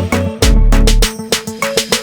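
Background music with a steady beat: an upbeat track with punchy drums and bass.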